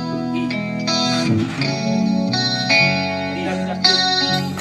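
Live band playing the opening of a song: sustained chords led by an electric guitar through an effects unit, changing about every second.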